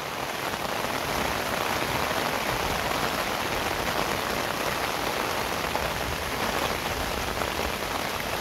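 Fairly heavy rain falling steadily on a taut waterproof tarp flysheet pitched over a tent, the drops hitting the fabric. It grows a little louder about a second in.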